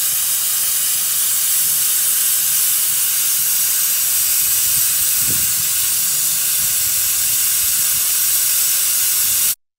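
A 3-foot narrow-gauge steam locomotive venting steam low at its front end: a loud, steady hiss that cuts off suddenly near the end.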